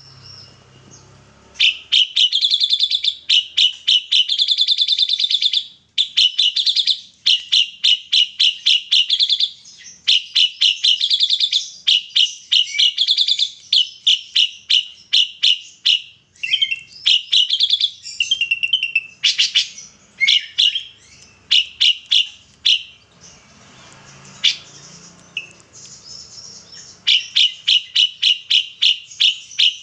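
Ashy drongo singing in long, loud runs of rapid repeated chirping notes broken by short pauses, its song filled with mimicked kapas tembak phrases.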